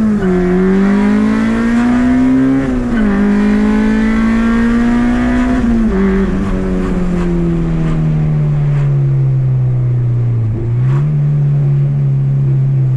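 Honda Civic EG's swapped-in K20A2 2.0-litre four-cylinder pulling hard through the gears: the engine note climbs, drops at an upshift about three seconds in, and climbs again to another shift. The revs then fall away for several seconds off the throttle, jump briefly with a downshift near the end, and settle to a steady cruise.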